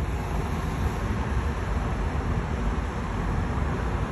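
Steady traffic noise from a busy multi-lane city street, cars driving past below.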